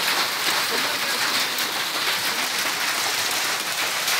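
Heavy rain and hail pelting down in a storm, a dense, steady hiss of falling rain and hailstones.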